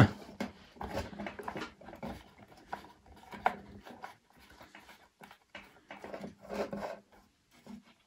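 A long screwdriver backing a small screw out of a tobacco filling machine's metal bracket: irregular light scraping and clicks of the blade working in the screw head, with a sharper click about three and a half seconds in.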